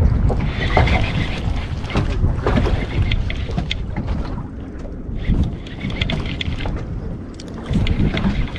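Wind buffeting the microphone on an open boat, with a baitcasting reel being wound in short spells of fine clicking whirr.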